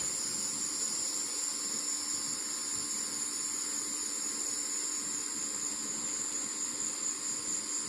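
Steady high-pitched insect chorus of crickets trilling continuously.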